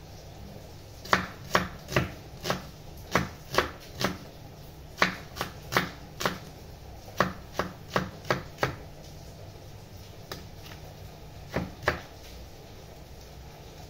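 Kitchen knife chopping a red onion on a wooden cutting board: sharp knocks of the blade on the board at about two a second, in runs with short pauses, ending with a pair of strokes near the end.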